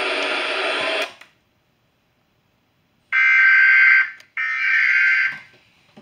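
A hiss of noise cuts off about a second in. After a short silence come two bursts of Emergency Alert System SAME header data tones, each about a second long: the buzzing digital warble that opens an alert broadcast.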